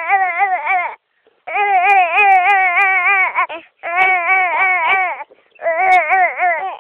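Baby making a long, loud, crying-like vocal noise while bouncing, the pitch wobbling up and down about three times a second. It comes in four held stretches with short breaths between them.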